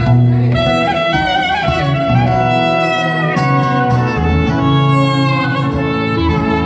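A clarinet playing a melody that moves from note to note, over acoustic guitar accompaniment.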